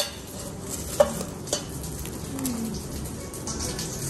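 Food being served at a table: a few sharp clinks of tongs and a knife against a ceramic plate in the first second and a half, then soft scraping and handling over a steady low hiss.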